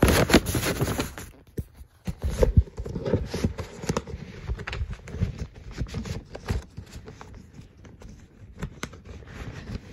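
Handling noise: irregular rustling, scraping and knocks from hands moving the recording phone and a cardboard record jacket, loudest in the first second.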